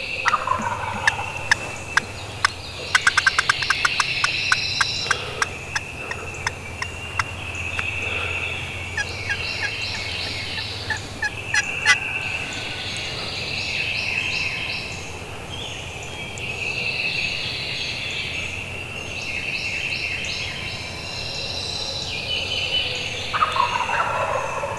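Several wild turkey gobblers gobbling again and again from the roost at daybreak. In the first half a rapid run of sharp slaps cuts across them: a turkey wing beaten to imitate a hen flying down off the roost.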